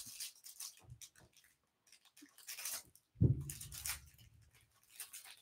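Clear plastic wrapper on a stack of trading cards crinkling in short, scattered rustles as it is handled and peeled open by hand, with one short low sound a little after three seconds in.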